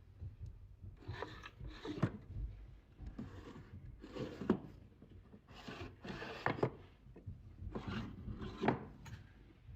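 Wood rubbing and scraping four times, each stroke ending in a sharp knock.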